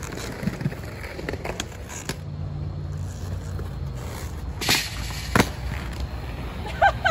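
Aggressive inline skates rolling on concrete, then two sharp knocks a little under a second apart as the skater hits a metal stair handrail and lands at the bottom of the stairs. A short shout follows near the end.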